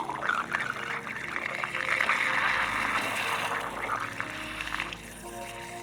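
Water running and splashing out as the newly plumbed PEX water line fills, swelling to a rush for a couple of seconds midway and then dropping off.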